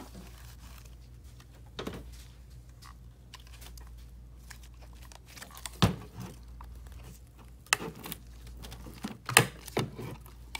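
Plastic clicks, knocks and rubbing as gloved hands work an external ink tank loose and slide it up off its mount on the printer. The sharpest knocks come about six seconds in and again about nine and a half seconds in.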